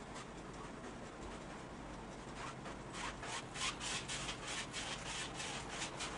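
Paintbrush scrubbing acrylic paint onto a canvas in quick back-and-forth strokes, starting about two seconds in, at about five strokes a second.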